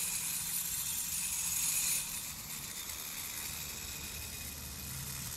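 Toy gyroscope's rotor spinning fast after being spun up with compressed air: a low, steady hum with a hiss over it that drops away about two seconds in.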